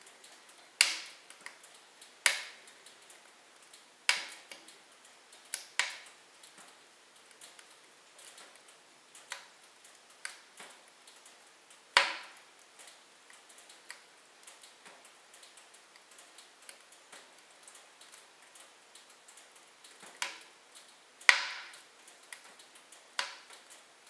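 Logs burning in a fireplace, crackling with faint ticks and about eight sharp pops scattered unevenly through. The loudest pops come about halfway and near the end.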